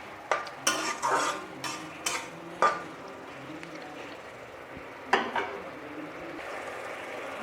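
A spatula scraping and stirring a spice paste and potatoes frying in a kadai, about six strokes in the first three seconds. A single sharp clank comes about five seconds in, and the oil sizzles steadily, growing slightly toward the end.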